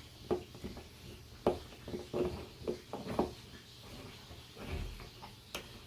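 Irregular small clicks and taps of a ceiling hook being twisted by hand into a toggle-bolt anchor, bunched in the middle of the stretch.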